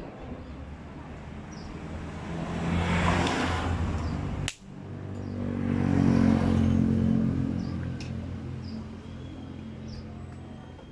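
A motor vehicle engine going by: it builds up, breaks off abruptly with a sharp click about four and a half seconds in, builds again to a louder peak, then fades away.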